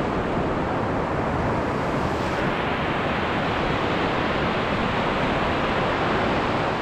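Wind buffeting the microphone: a steady, loud rush with a fluttering low rumble underneath.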